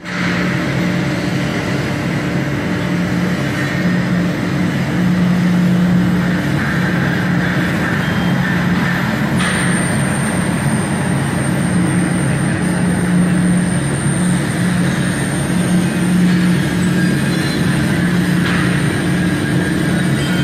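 Courier-bag film blowing machine running: a steady mechanical hum with a low drone that swells and fades, under a spread of machine noise. A thin high whine starts about nine seconds in and holds.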